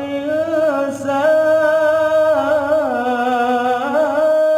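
A single voice reciting the Quran in melodic tajwid style, drawing out one long ornamented line. It holds steady notes with small warbles, dips in pitch about three seconds in and climbs back near the end.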